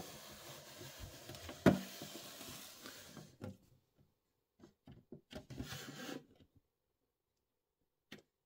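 Handling noise from a plastic shipping-container model display case being taken apart: plastic rubbing and sliding, with one sharp knock about two seconds in, then a few light taps and a short scrape.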